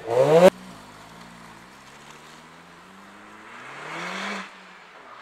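A tuned car's engine revved hard, rising sharply in pitch and cut off abruptly about half a second in. Then another car's engine accelerates, rising to a peak about four seconds in and falling away.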